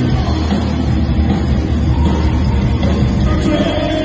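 A rock band playing live through a loud PA: electric guitars, bass and drums, steady and dense with a heavy low end.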